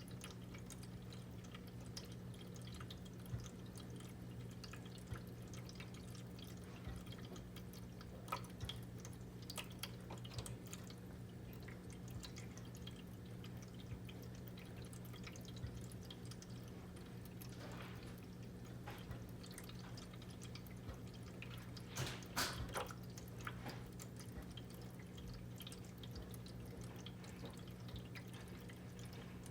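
Pet drinking fountain trickling and dripping, its small electric pump giving a steady low hum. About three quarters of the way through there is a short flurry of louder splashes.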